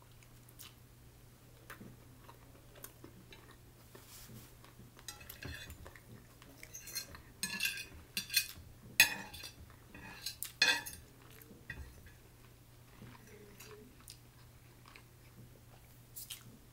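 Metal fork clinking and scraping against a plate while gathering rice noodles, with chewing in between. The clinks come in a busy run through the middle, the two sharpest a couple of seconds apart.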